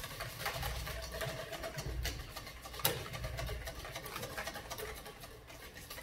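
Wire whisk beating thick, emulsified aioli in a stainless steel mixing bowl as the last of the oil is squeezed in: a rapid run of clicks and scrapes from the wires against the bowl, with one sharper clink about three seconds in.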